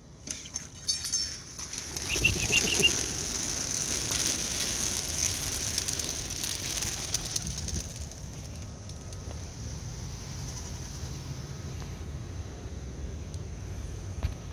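A flock of young racing pigeons taking off together from a release box: a rush of flapping wings that builds about two seconds in, then eases into a steadier whir as the birds climb away.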